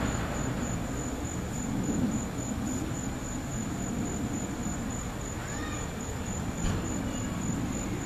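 Vintage Toastmaster 4425 box fan with a McGraw-Edison motor running down, its blades slowing, giving a steady low rush of air and motor rumble, with one light knock about two-thirds through. The owner reckons the motor probably needs oil.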